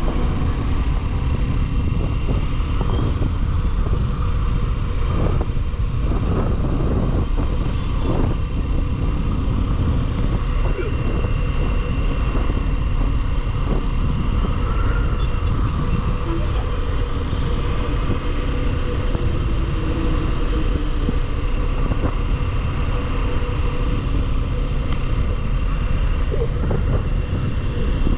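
Motorcycle on the move: steady wind rumble over the microphone with the engine running at a constant pace.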